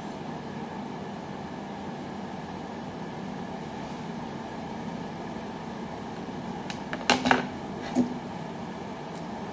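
Steady hum of room noise, with a few sharp knocks and taps about seven and eight seconds in as a hand touches the phone that is streaming.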